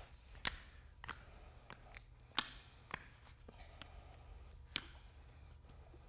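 Faint scattered clicks and light scrapes of a notched squeegee spreading a wet clear MMA resin top coat across a floor, with the worker stepping in spiked shoes, over a low steady hum.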